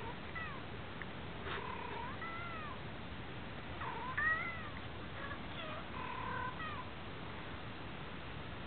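Cats in a 'talking cats' video meowing in a string of short calls that rise and fall in pitch, played back through laptop speakers.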